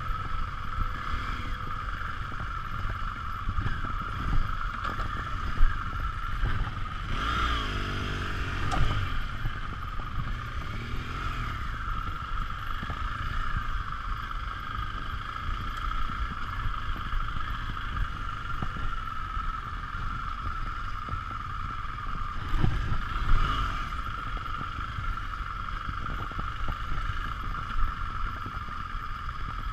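BMW R 1200 GS LC's boxer-twin engine running at low speed off-road, with knocks and rattles from the bike jolting over the trail and a steady high hum throughout. The engine note swells, rising and falling, about seven seconds in and again about twenty-three seconds in.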